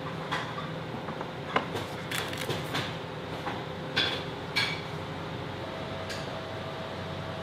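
Trays and dishes being set down on a wooden table, half a dozen light knocks and clacks over a steady low hum.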